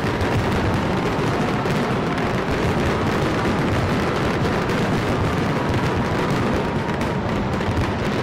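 Fireworks exploding in a dense, unbroken barrage of bangs and crackles.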